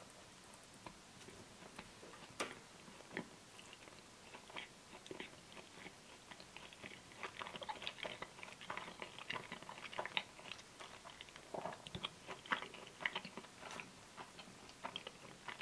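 Faint close-up chewing of a soft, soggy chicken baguette sandwich: wet mouth sounds and small crackles, sparse at first and densest from about six seconds in, thinning out near the end.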